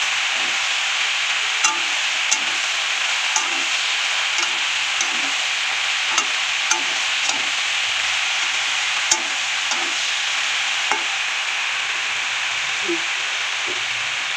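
Oyster mushrooms and vegetables sizzling in mustard oil in a metal kadai. A metal spatula stirring them scrapes and knocks against the pan at irregular intervals, roughly every second.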